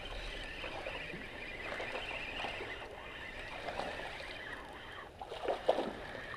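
A small hooked bass splashing at the water's surface as it is reeled in, over the steady whir of a spinning reel being cranked.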